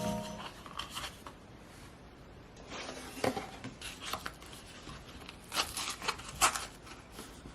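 Scattered small clicks, taps and rustles of objects being handled, with a louder cluster about three seconds in and another around six seconds. The last of a mallet-percussion music sting dies away at the very start.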